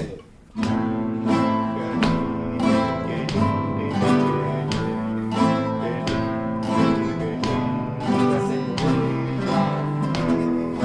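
Acoustic guitar strumming chords in a steady rhythm, starting abruptly about half a second in, the chords changing every few seconds.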